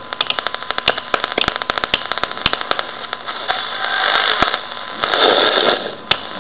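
Pye PE14T Merlin transistor radio's speaker crackling with static as its tuning knob is turned between stations: rapid clicks for the first three seconds or so, then two swells of hiss about four and five seconds in.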